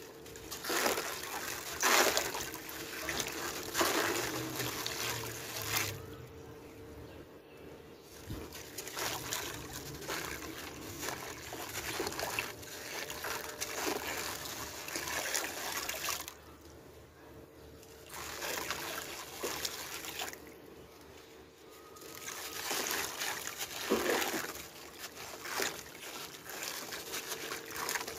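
A dry sand-cement ball crumbled by hand, its grit crunching and pouring down into a tub of water in uneven surges with short lulls. A faint steady hum sits underneath.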